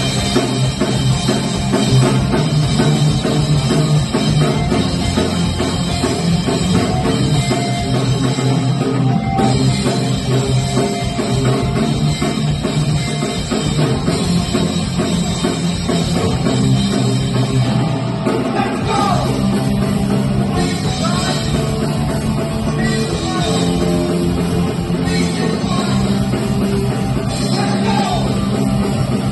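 Punk rock band playing live: distorted electric guitars, bass and a drum kit going at full volume without a break.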